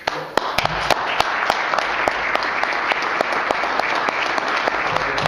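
Audience applauding. It breaks out all at once, with sharp single claps standing out at first, then carries on at a steady level.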